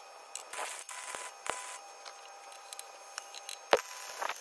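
Metalworking on steel plates and end caps: scattered metal knocks and brief scrapes, with one sharp, loud knock near the end.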